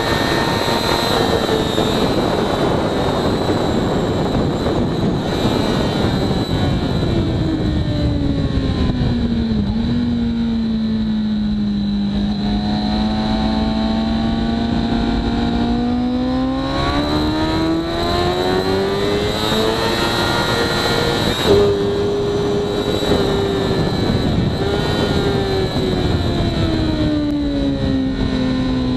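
Onboard sound of a 2013 Kawasaki ZX6R's inline-four engine through a Hindle full exhaust, with heavy wind rush at first. The engine note falls as the bike slows hard for a slow corner, holds low, then rises again as it accelerates out. It jumps up suddenly about two-thirds of the way through and falls again near the end.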